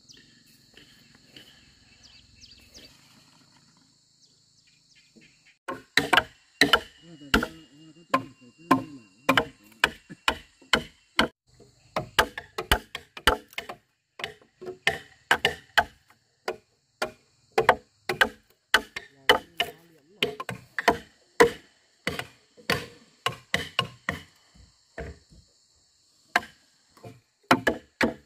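Timber being struck again and again during carpentry: sharp wooden knocks, a couple a second in an uneven rhythm, starting about six seconds in, over a steady high hiss.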